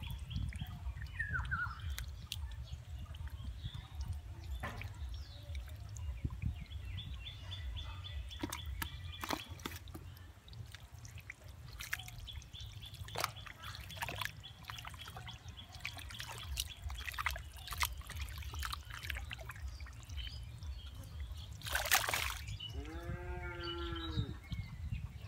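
Hands sloshing and groping through shallow muddy water, with a steady low churn and many short splashes and drips. Near the end a short wavering pitched call is heard.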